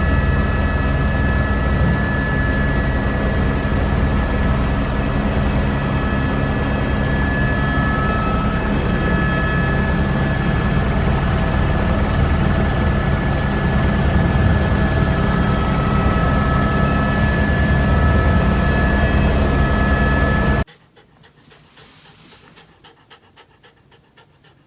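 Helicopter in flight: a loud, steady engine and rotor noise with high whine tones over a fine rapid beat, cutting off suddenly near the end.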